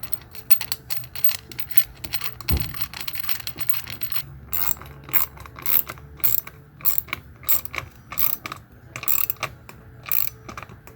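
Hand ratchet wrench clicking as a fastener is tightened, with quick back-and-forth strokes of about two a second from about four seconds in. A dull knock comes about two and a half seconds in.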